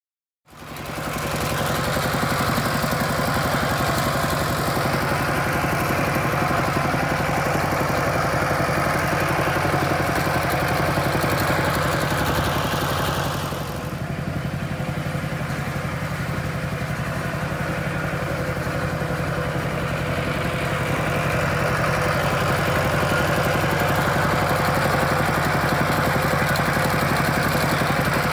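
Single-cylinder diesel engine of a Kubota two-wheel walking tractor running steadily under way, with a fast, even chugging. It starts abruptly and turns a little duller and quieter about halfway through.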